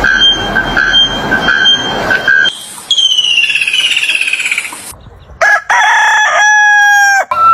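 Fowl crowing, rooster-like: a series of long, held calls, several of which rise at the start and drop in pitch at the end.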